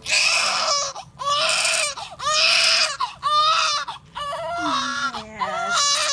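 Newborn baby crying in a run of loud wails, each about a second long with short breaks between.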